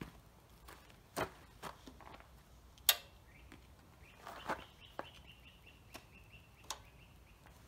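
Faint scattered clicks and taps of hands setting the controls on a Predator 212 engine before a start, the sharpest about three seconds in. A faint thin high tone runs through the second half.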